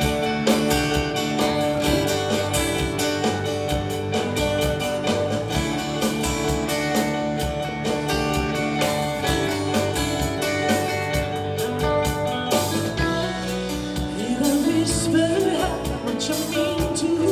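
Live country band music: electric guitars, bass, keys and drum kit playing a mid-tempo song. A woman's lead vocal comes in near the end.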